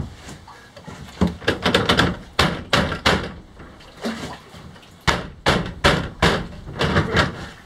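Irregular series of knocks and clunks as the pedal boat's crankshaft is shaken by hand in its bearing holder, checking the bearing for play. The knocks start about a second in.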